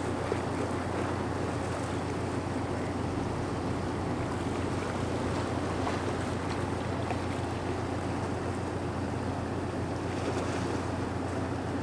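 Steady low drone of ship engines under a constant rush of water and wind noise on the microphone, heard from aboard a moving vessel.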